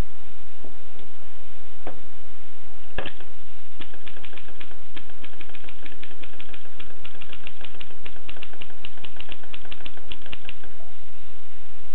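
Keys of a 1920s Erika manual typewriter striking: a few separate strokes, then a quick run of typing at about five or six strokes a second that stops shortly before the end. A steady hiss runs underneath.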